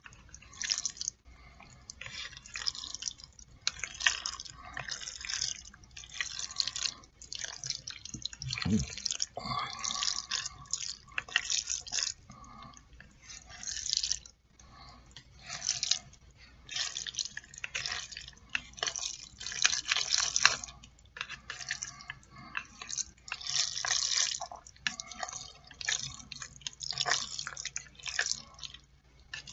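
Jajangmyeon noodles coated in thick black bean sauce being stirred and lifted with chopsticks, giving short, irregular wet bursts roughly once a second. A single low thump comes about nine seconds in.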